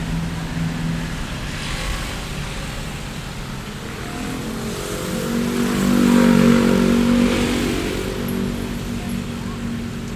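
Busy street traffic ambience: motor vehicle engines running and passing, with one vehicle growing louder to a peak about six seconds in and then fading.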